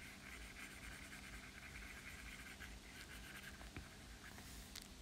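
Faint scratching of an Apple Pencil stroking across an iPad screen, in two stretches, with a few light taps.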